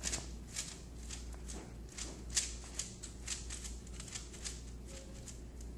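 Fingertips patting and pressing a ball of sticky dough flat on parchment paper in a metal baking sheet. The paper crinkles in a quick, irregular run of soft ticks, about three or four a second.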